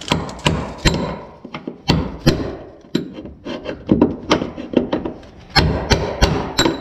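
Hammer blows on a chisel set against the metal lock ring of a 2001 Chevy Silverado's fuel pump module, driving the ring around to lock the new pump into the tank. About a dozen sharp strikes come at an uneven pace, some in quick pairs.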